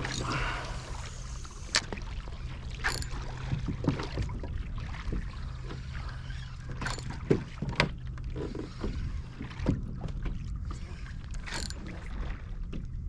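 Scattered sharp knocks and clicks from gear and movement on a fishing kayak, over a steady low hum.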